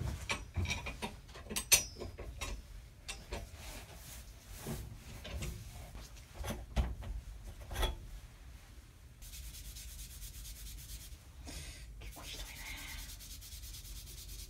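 Metal clinks and knocks as a rusty bicycle saddle clamp is taken apart by hand, followed about halfway through by steady, fast back-and-forth rubbing on the rusty parts as they are cleaned.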